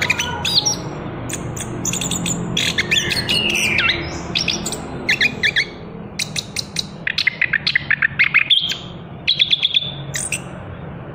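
Chestnut-capped thrush (anis kembang) singing continuously: a fast string of short chirps and slurred whistled notes, some sweeping up and down. It gets somewhat softer partway through.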